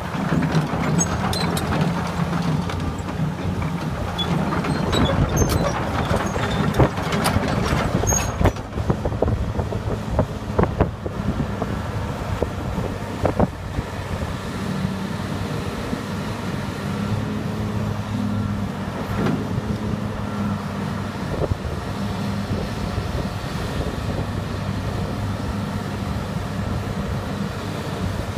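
Diesel engine of a Fiat Hitachi FH330LC-3 33-ton tracked excavator running steadily while the boom and bucket are worked. Several sharp knocks and clicks come in the first half.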